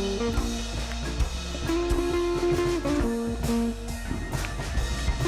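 Background music: guitar-led instrumental with a steady drum beat.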